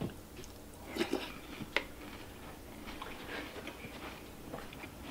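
Quiet chewing of a mouthful of cereal in milk, with a few light clicks of a metal spoon against the bowl.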